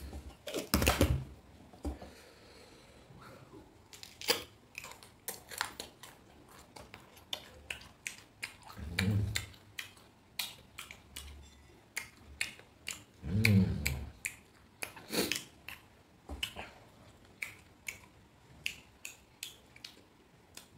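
Close-miked crisp clicks and crunches of a raw green mango being peeled and bitten at the skin, with two short low hums about nine and thirteen seconds in.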